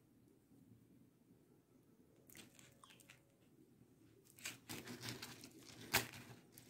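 Beads clicking and rustling as a strung strand of orange tube beads is handled and laid out on the work surface. It is quiet at first, with faint scratching a couple of seconds in, then a run of clicks and rustles and one sharp click about six seconds in.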